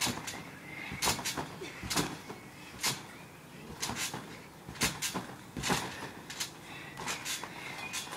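Garden trampoline being bounced on: the mat and springs sound at each landing, about once a second, with some landings coming in quick pairs.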